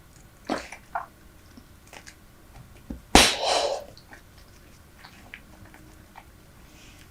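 Close-miked chewing of Super Bubble bubble gum: scattered wet mouth clicks and smacks. About three seconds in comes one much louder sharp pop followed by a short rush of noise.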